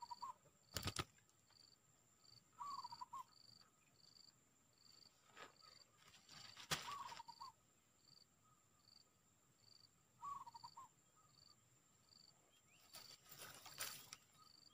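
Faint wildlife ambience. An insect chirps in a steady rhythm about twice a second over a constant thin high whine, and a short warbling bird call comes four times, a few seconds apart. A few sharp knocks and rustles are heard just after the start, in the middle and near the end.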